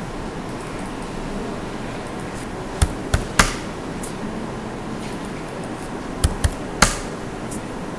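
Sharp clicks from working a computer's mouse and keyboard: three quick clicks about three seconds in and three more near seven seconds, over a steady background hiss.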